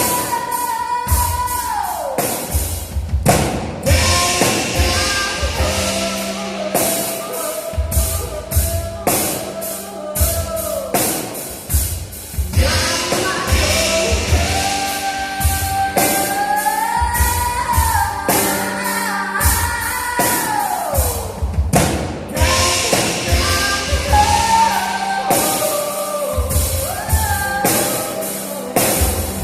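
Live trio music: a woman singing long, sliding notes without clear words over drum kit and piano/keyboards at a slow tempo.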